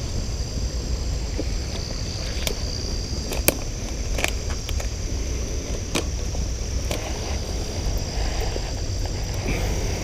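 Insects droning on a steady high pitch over a low rumble, with scattered sharp clicks and knocks; the sharpest comes about three and a half seconds in.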